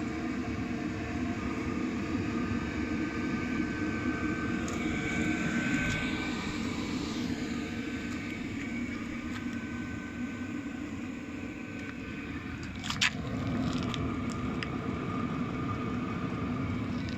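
Chinese 5 kW diesel air heater running: a steady blower drone with faint whining tones. A single sharp click, the loudest sound, comes about two-thirds of the way through, followed by a few fainter ticks.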